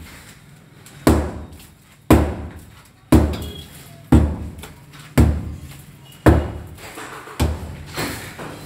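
Sledgehammer striking a plastered brick wall to break it out, about seven heavy blows roughly one a second, each a sharp thud with a short trailing rattle.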